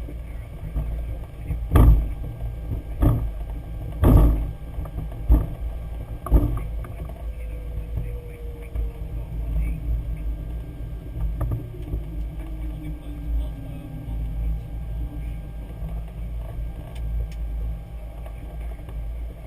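Boeing 737-800 flight deck noise: a steady low rumble with five sharp thumps about a second apart in the first half, then a faint tone sliding slowly down in pitch.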